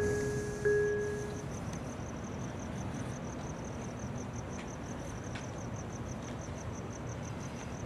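Cricket chirping steadily, about four high chirps a second. Near the start a clear ringing tone, struck once, dies away within a second.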